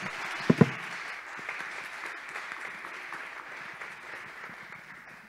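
Audience applauding, fading out near the end, with two brief thumps close together about half a second in.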